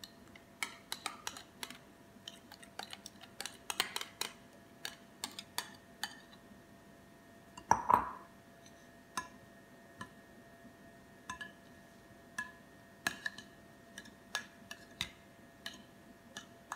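A metal spoon clinking and scraping against ceramic bowls in scattered sharp clicks, with one louder ringing clink about eight seconds in, as dressing is scraped from a small bowl and coleslaw is stirred in a large one.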